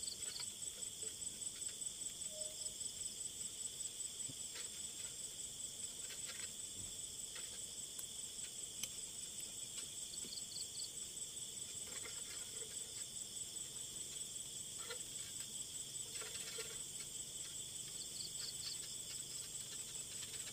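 Night insect chorus: a steady, high chirring that pulses about four times a second, with a few shorter trilled calls over it. A few faint rustles and taps come from a long pole being worked among tree branches.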